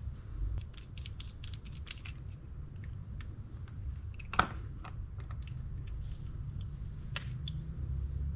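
Small tools and metal reel parts clicking and tapping on a workbench during disassembly of a spinning reel: a quick run of light ticks, then a sharp clack about four seconds in and another near the end, over a low steady hum.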